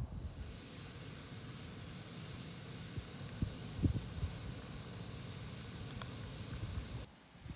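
Portable gas-canister camping stove burning with a steady hiss under a pan of water that is heating a rice bowl, with wind rumbling on the microphone. There are a few light knocks in the middle, and the sound stops abruptly near the end.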